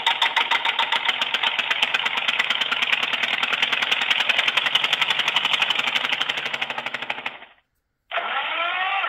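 Emporia TALK comfort mobile phone playing its built-in ringtones through its small loudspeaker. First comes a rapid ticking pattern that quickens and stops about seven and a half seconds in. After a brief pause, another ringtone of quick upward-sweeping tones begins.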